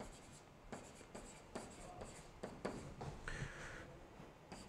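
Faint, irregular taps and scratches of a digital pen writing by hand on a pen-input screen.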